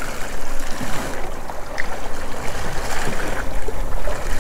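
Steady rush of wind on the microphone and sea water sloshing against the boat's hull, with a heavy low rumble.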